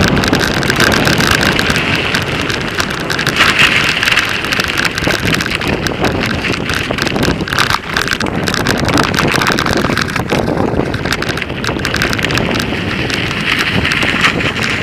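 Wind rushing over the microphone while a mountain bike is ridden, with constant small rattles and knocks from the bike.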